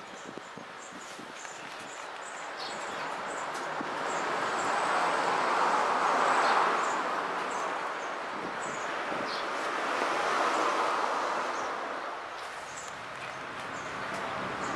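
Road traffic passing, a rushing tyre-and-wind noise that swells and fades twice, with short bird chirps throughout.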